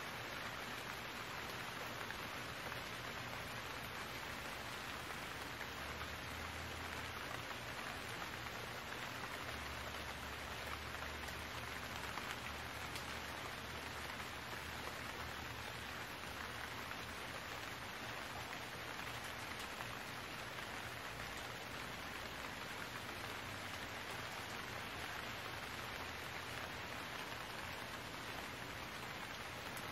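Steady rain falling, an even hiss, with a faint low hum that comes and goes in the first half.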